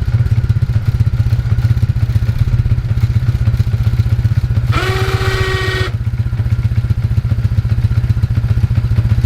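ATV engine running steadily at idle, with even low firing pulses and no revving. About five seconds in, a brief steady pitched tone lasting about a second sounds over it.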